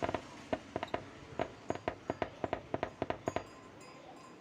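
A rapid, irregular string of sharp clicks and pops from a freshly re-coiled P Audio 15-inch speaker being tested, ending about three and a half seconds in.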